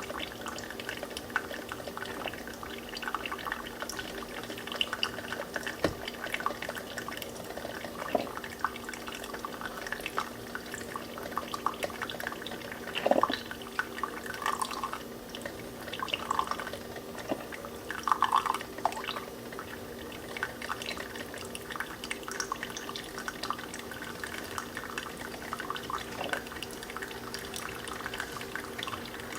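Brewed coffee trickling and dripping into a glass, a constant patter of small drops over a steady low hum. A few louder gurgling drips come around the middle.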